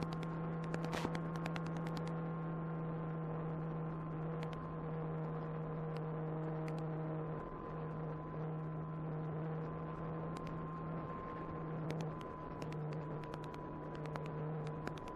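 Electric motor and propeller of an Apprentice 15e RC airplane humming at a steady pitch, with a couple of brief dips in the middle, heard through the plane's onboard FPV audio, with scattered sharp clicks.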